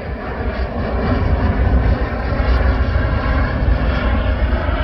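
Jet airliner engines running with a steady rushing noise, growing a little louder about a second in, over heavy low rumble from wind buffeting the microphone.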